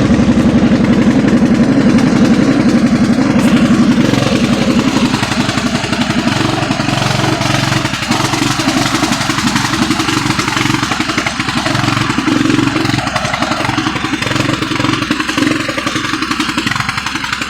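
Riding lawn mower engine running steadily as the mower is driven, with a rapid firing pulse. It drops a little in level after about four seconds.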